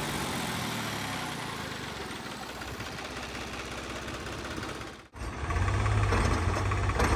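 Vehicle engine running, slowly fading over the first five seconds. After an abrupt break about five seconds in, an engine idles close by with a steady low drone.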